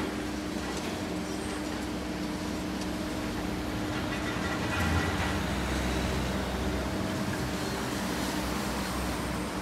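Liebherr 954C high-reach demolition excavator at work: its diesel engine and hydraulics run steadily with a constant hum, with a louder surge of load about five seconds in and a few faint cracks.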